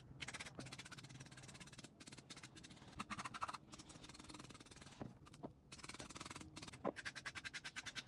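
A knife blade scraping the skin off a luffa (sponge gourd): quick runs of short, faint scraping strokes with brief pauses between them.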